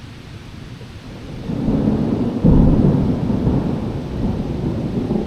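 Thunder: a low rumble builds about a second and a half in, jumps to a louder clap about a second later, then rolls on steadily.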